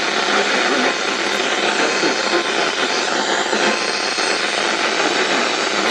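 Loud steady radio static hiss on a NOAA Weather Radio broadcast, all but drowning out the synthesized voice reading the warning: noisy, weak reception of the station.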